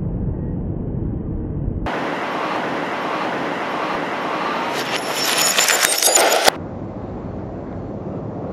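Edited sound-effects track: a low rumble gives way abruptly to a loud hiss, which builds into dense crackling about three seconds in. Everything cuts off sharply, and a quieter rumble is left behind.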